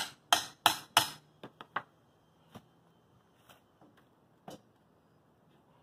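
A hand tool striking the old engineered-wood siding: four quick, sharp blows about a third of a second apart, then a few lighter taps and clicks.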